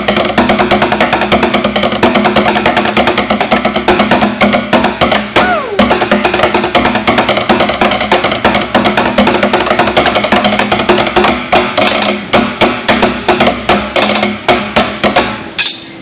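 Loud music built on fast, dense drum and percussion strikes over a steady sustained low tone. It stops abruptly shortly before the end.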